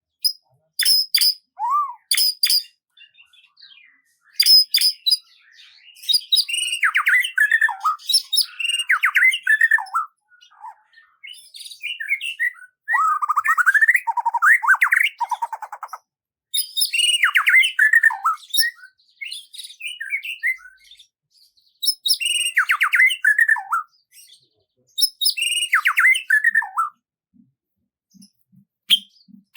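Songbird singing: quick high chirps and falling warbled phrases that come in bursts a few seconds long, with short pauses between.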